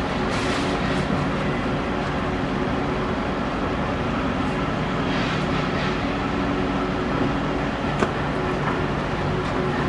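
Cat 330DL excavator's six-cylinder diesel engine running steadily under load as the machine digs, swings and dumps into a dump truck, with brief hissing bursts and a single sharp knock about eight seconds in.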